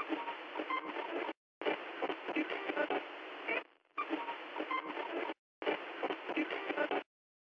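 Thin, crackly radio-style static as an intro sound effect, cut into four stretches of one to two seconds each by sudden dropouts, and stopping abruptly near the end.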